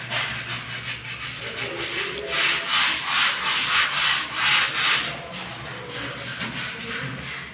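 Hand tool scraping against a freshly laid ceramic wall tile and its adhesive, in a run of quick rasping strokes, about three a second, loudest from about two to five seconds in.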